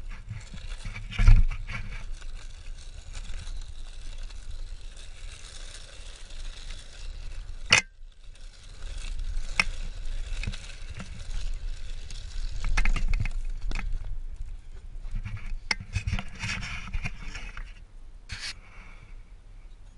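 Mountain bike rolling fast down a dirt singletrack: tyres scraping and crunching over loose dirt, with sharp knocks and rattles as the bike hits bumps, the loudest about a second in, over a low wind rumble on the microphone.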